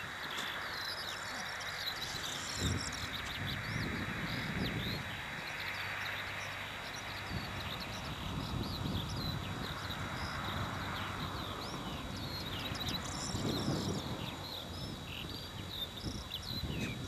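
Small birds chirping and twittering continuously over a steady rush of wind on the microphone, with uneven low rumbles from the wind.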